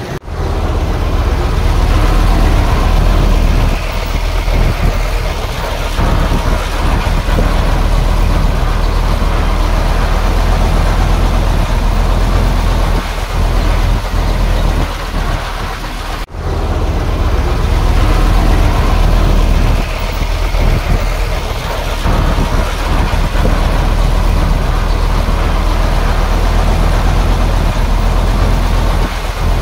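Heavy diesel construction machinery running steadily and loudly: a deep engine drone with a rough noise spread over it. The sound cuts out for an instant about sixteen seconds in.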